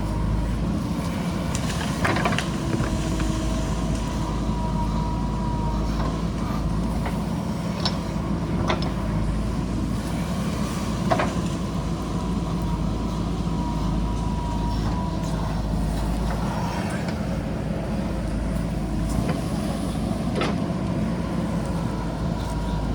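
JCB backhoe loader's diesel engine running steadily while digging into the hillside, with a faint high whine that comes and goes and scattered sharp knocks, the loudest about eleven seconds in.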